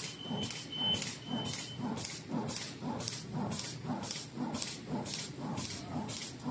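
Zipper-lock bag making machine running in a steady cycle, a short hiss of released air about twice a second, each with a low knock. A thin whistle sounds for the first two seconds or so.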